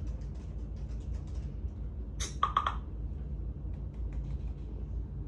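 Laptop keyboard typing: quick, irregular key clicks over a steady low room hum, with one brief louder sound about two seconds in.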